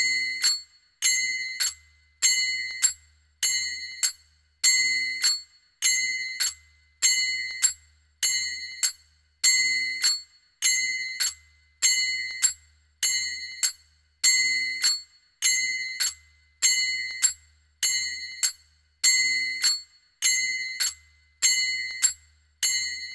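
Manjira (small Indian brass hand cymbals) struck together in a steady looped rhythm. Each beat is a bright ringing clash with a lighter second stroke just after it, about one pair every 1.2 seconds, and each ring fades before the next.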